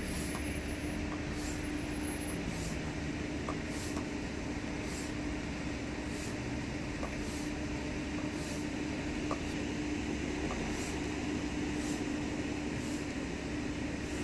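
Hand pump inflating a stand-up paddle board: a short hiss of air with each stroke, about three strokes every two seconds, over a steady background hum.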